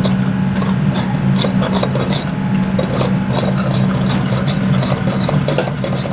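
Metal ladle scraping and stirring round an aluminium kadhai in quick, irregular strokes, roasting a thick onion-and-spice masala until it browns. A steady low hum runs underneath.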